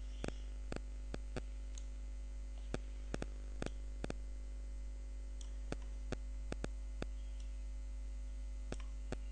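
Computer mouse button clicking irregularly, about twenty clicks, several in quick press-and-release pairs, over a steady low hum.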